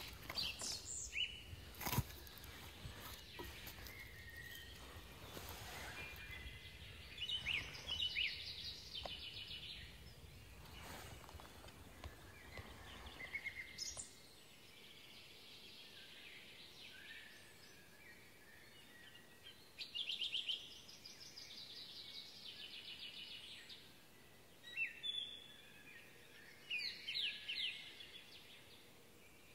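Small songbirds singing in short, repeated trilled phrases. Over the first half, low wind or handling noise and a sharp knock about two seconds in; after that only the birdsong over a faint background.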